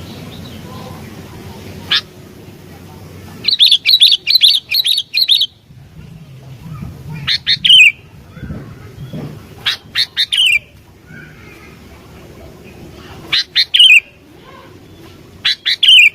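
Sooty-headed bulbul (kutilang) singing in short, loud bursts of sharp chirping notes. There is one quick run of about eight notes early on, then several shorter phrases of three or four notes, with pauses between them.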